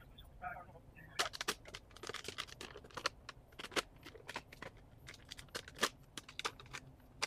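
Burning brush pile crackling: irregular sharp snaps and pops, coming thick from about a second in.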